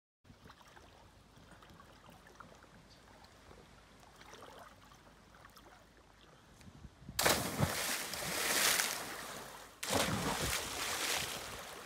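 Loud rushing noise for a couple of seconds, then a sudden loud splash about ten seconds in as a person plunges into deep water.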